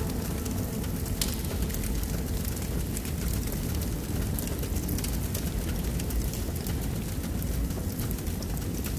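A steady rumbling noise with a dense crackle running through it.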